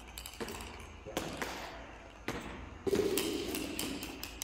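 Footsteps in heavy leg-brace boots on a gym floor: a string of uneven knocks and thuds as the feet are set down.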